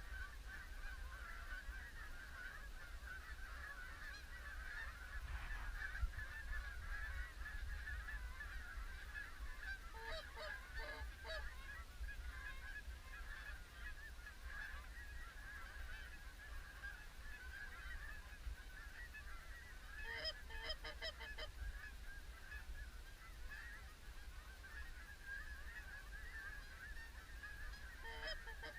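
A large flock of Canada geese honking in a continuous massed chatter. Three times, at about ten, twenty and twenty-eight seconds in, there are bursts of louder, closer honks in quick series.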